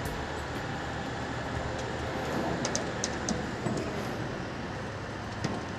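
Steady rumble of a heavy vehicle's engine running outdoors, with a few light clicks about halfway through.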